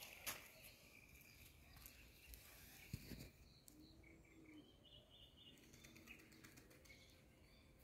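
Near silence: faint outdoor ambience with a few faint high chirps and two soft clicks, one just after the start and one about three seconds in.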